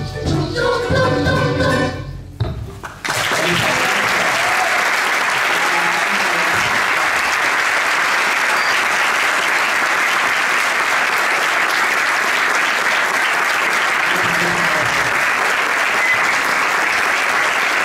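A children's choir's song ends, with small guitar accompaniment, in its last couple of seconds of singing; about three seconds in the audience breaks into steady, full applause.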